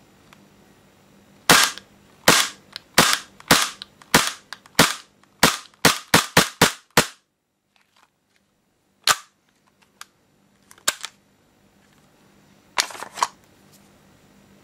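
Tokyo Marui Sentinel Nine gas blowback airsoft pistol firing about twelve shots, each a sharp crack of the slide cycling. The shots come about one every two-thirds of a second, then quicken to about three a second for the last five. The slide then stays locked back on the empty magazine, and a few clicks of handling follow, with a quick cluster near the end as the magazine is taken out.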